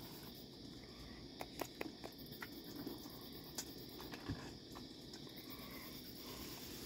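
Steady chirping of crickets, with a handful of sharp clicks and taps from about a second and a half in to past four seconds as raccoons eat from metal bowls and a water pan.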